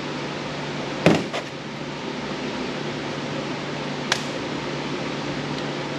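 Steady fan-like hum and hiss, with a sharp knock about a second in, a smaller one just after, and a single crisp click about four seconds in: hand tools being handled while a screwdriver bit is tried on a Roomba's screws.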